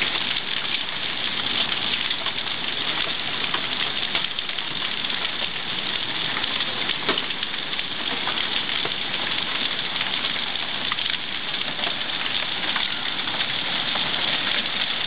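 Heavy rain falling on a lawn and on flooded ground: a steady hiss dotted with countless small drop impacts.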